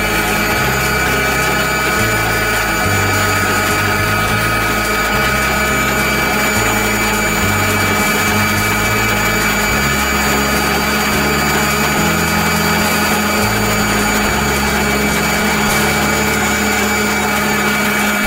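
Electric stand mixer running steadily at speed, its beater turning in a stainless-steel bowl as it mixes in sugar.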